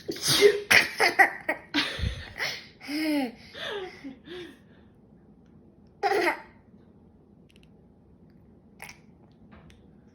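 A young child laughing at a sneeze: a rapid run of giggles for the first four and a half seconds, one more short burst of laughter about six seconds in.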